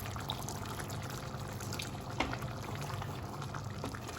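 Water being poured into a pan of curry gravy, a steady pouring and trickling, with a sharp tap of a vessel or utensil about two seconds in.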